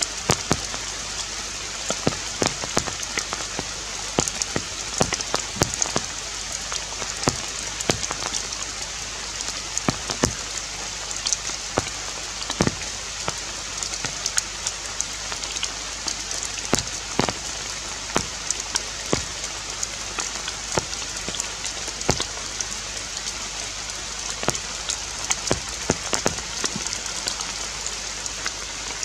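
Forest ambience: a steady hiss with many irregular sharp taps and clicks scattered through it.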